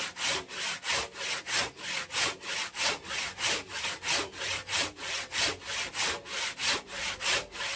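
Hand saw cutting firewood, likely kakawate (madre de cacao) wood, in steady back-and-forth strokes at about three a second.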